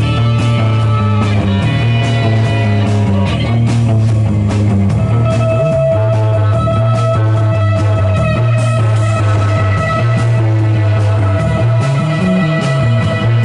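Live psychedelic rock band playing an instrumental passage with no vocals: electric guitars, a steady heavy bass and a drum kit keeping a regular beat. A long sustained guitar note comes in about five seconds in.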